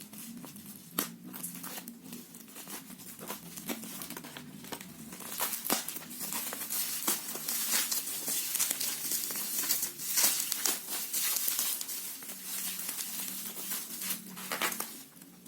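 Product packaging being crinkled and torn open by hand: irregular crackling with sharp clicks, busiest and loudest in the middle, over a faint steady low hum.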